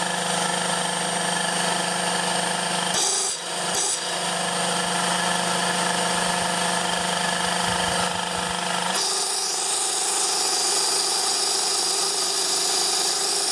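Electric motor on a variable frequency drive running steadily and turning a Sanden compressor through a V-belt and pulley, a continuous hum with several steady whining tones. It briefly dips just after three seconds, and about nine seconds in the low hum drops away while a higher hiss takes over. The motor is short of power at the drive's limited voltage.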